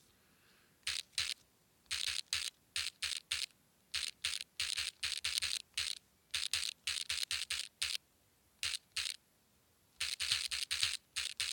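Typing on a phone's touchscreen keyboard: short, crisp key-tap sounds in irregular runs of a few per second, with brief pauses between runs.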